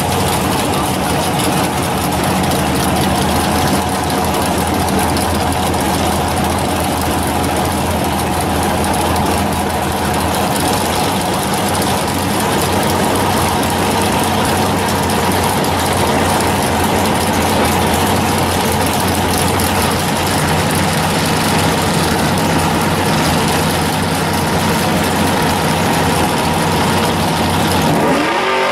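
Drag car's V8 engine idling steadily, its revs starting to climb right at the end.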